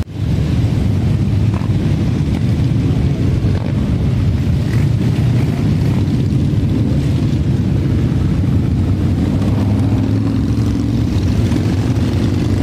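Many motorcycle engines, mostly cruiser-style bikes, running together as a large column rides past, making a steady low drone.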